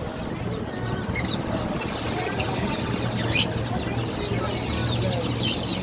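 Many caged budgerigars and lovebirds chirping and chattering, with short high calls over a steady low hum.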